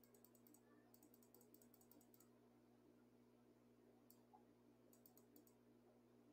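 Near silence: faint room tone with a few quick runs of soft, sharp clicks, like small plastic buttons being pressed in rapid succession.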